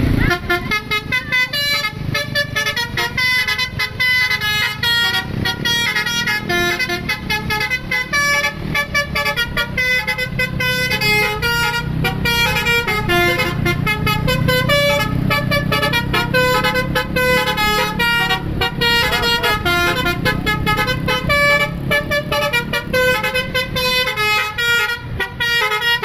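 Tour bus's basuri telolet horn playing a fast tune of short, stepping notes without a break, over the low rumble of the bus engine.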